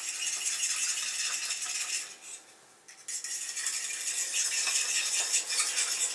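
Wok sauce being stirred briskly in a small bowl, the utensil clinking rapidly against the bowl's sides. The clinking stops for about a second partway through, then starts again.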